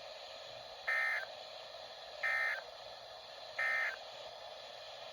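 NOAA Weather Radio SAME (Emergency Alert System) digital data sent as three short, identical bursts about a second apart: the end-of-message code that closes the Required Weekly Test.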